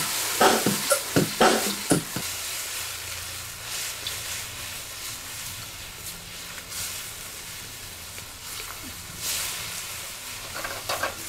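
Stir-fry sizzling steadily in a hot pan, with a spatula knocking and scraping against the pan for the first two seconds and again near the end.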